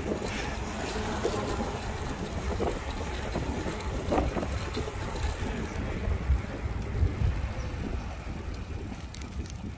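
Steady wind rumble on the microphone of a camera riding along on a moving bicycle.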